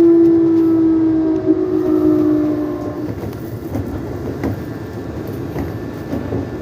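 Keisei 3600-series electric train running: a motor whine slowly falls in pitch and fades out about three seconds in, as the train slows. Wheel and track rumble with scattered clicks goes on underneath.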